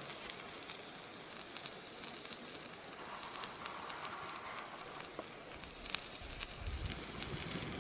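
Wood fire and embers crackling faintly: a soft steady hiss with scattered small pops.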